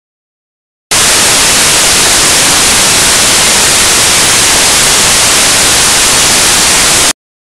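Loud, steady static hiss like white noise, with no game sounds audible through it. It cuts in abruptly after about a second of dead silence and cuts off just as suddenly near the end.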